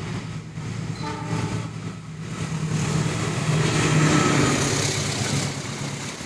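A train passing at speed: a low engine or motor hum with the rush of wheels on rails that builds to its loudest about four seconds in, then eases off.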